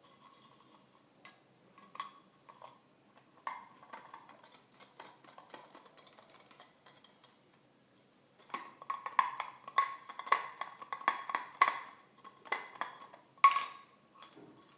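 Pet rabbit eating Cheerios: irregular crisp crunches and clicks, scattered at first, then a dense run of quick crunches for about five seconds in the second half.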